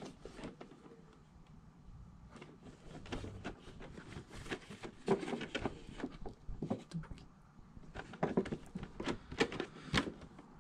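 Handling of a Funko Pop cardboard box with a clear plastic window as it is turned in the hands: irregular light taps, rubs and rustles of fingers on cardboard and plastic, busier in the second half.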